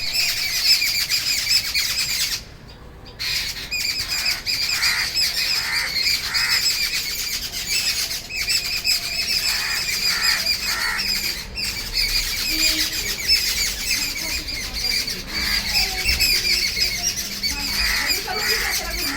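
Birds chirping continuously, many high calls overlapping, with a short lull about two and a half seconds in.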